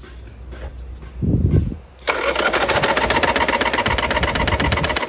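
Mitsubishi 4M40 2.8-litre four-cylinder diesel engine being started: a short low cranking burst about a second in, then it catches abruptly about two seconds in and runs with a loud, fast, even clatter. The seller calls it a no-good engine with a problem.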